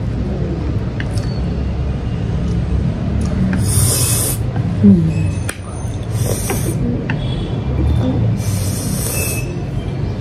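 A person slurping instant ramen noodles: three long, airy slurps about two and a half seconds apart, over a steady low rumble.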